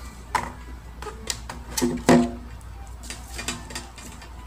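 Irregular clicks and knocks as a plastic WiFi modem and other small items are handled on a tabletop. The loudest is a knock with a short ring about two seconds in.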